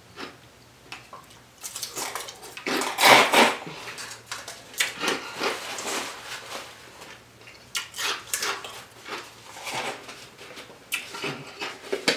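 Close-miked mouth sounds of eating: wet chewing and lip-smacking in irregular bursts, with breathy puffs through pursed lips, the mouth burning from very spicy food.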